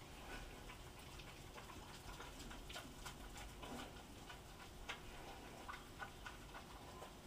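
Pigs eating from bowls: faint, irregular clicks and chewing sounds as they feed.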